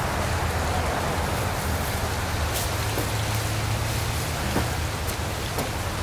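Steady splashing hiss of pond water running, with a low hum underneath from the pond's pump and filter; a few faint knocks about halfway through.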